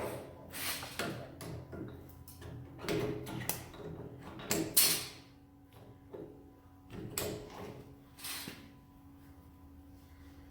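A string of scrapes, rustles and knocks from things being handled and moved, coming in about six short clusters with the loudest around the middle, over a faint steady hum.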